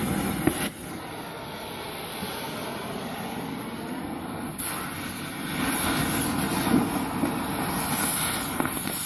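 Cutting torch flame running with a steady hissing roar as it is played on a glass cake stand, growing louder about halfway through.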